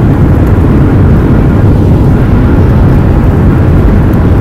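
Airliner cabin noise during the landing roll: a loud, steady low rumble of the jet engines and the wheels on the runway, heard from a window seat over the wing.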